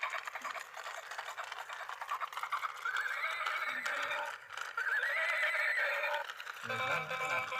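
Electronic plastic toy horse playing a recorded horse whinny over clip-clop hoof sounds, with two wavering neighs, one about three seconds in and one about five seconds in.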